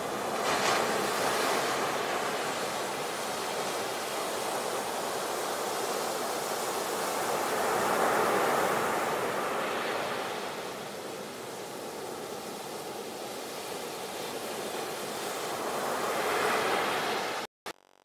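Sea waves breaking and washing in, a continuous rush of surf that swells three times, about every eight seconds. It cuts off abruptly near the end.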